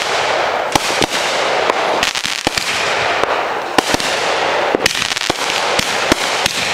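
Consumer fireworks going off in rapid succession: a continuous hiss and crackle broken by many sharp bangs.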